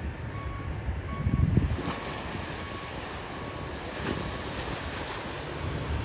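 Small waves breaking and washing up the sand, with wind buffeting the microphone, loudest about a second and a half in. A faint short beep repeats under it, a little under once a second.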